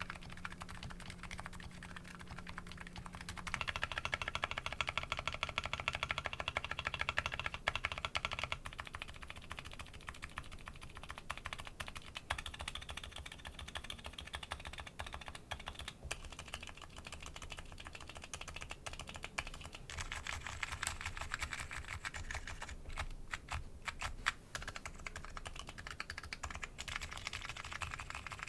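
Continuous fast typing on a Nuxros Kraze custom keyboard fitted with MetaKeebs MetaPulse electro-capacitive switches: a dense run of keystroke clacks, louder for about five seconds from roughly three and a half seconds in.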